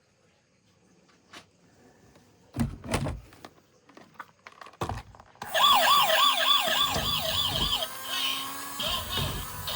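A few knocks of plastic toys being handled. About halfway through, a toy emergency vehicle's electronic siren starts: a fast warbling yelp of about four rises a second, changing to a different pattern near the end.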